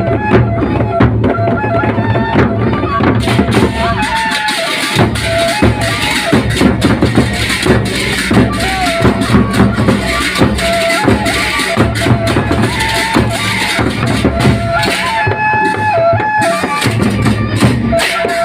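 Gendang beleq ensemble playing: big drums and cymbals beating fast under a stepped melody line. The cymbals come in about three seconds in.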